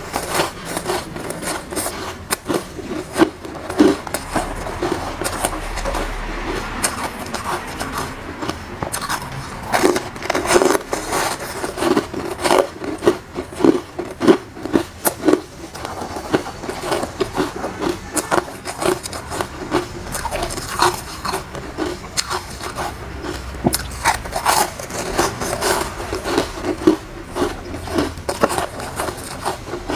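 Close-up chewing and crunching of soft, foamy flavoured frozen ice chunks: a continuous run of small crunches, in denser runs now and then.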